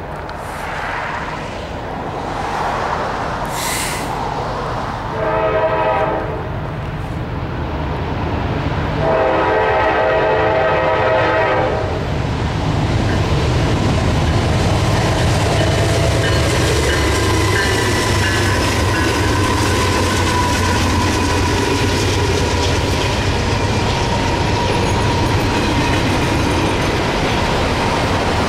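GE diesel-electric freight locomotives approaching and passing. The lead unit sounds its air horn twice, a short blast about five seconds in and a longer one about nine seconds in. From about twelve seconds in, the locomotives' engines rumble past, then double-stack container cars roll by with steady wheel clatter and a thin, steady wheel squeal.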